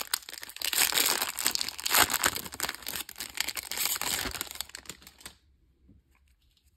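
A foil trading-card pack wrapper being torn open and crinkled, a dense crackling that stops about five seconds in.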